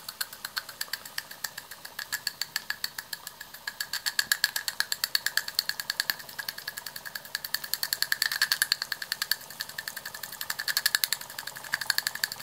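Latimer L5 toy steam engine running under steam: a fast, even train of exhaust beats that swells louder and fades back a few times. It runs smoothly.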